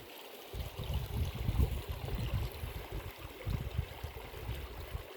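Mountain stream flowing: a steady rush of water. From about half a second in, a louder, irregular low rumble sits over it.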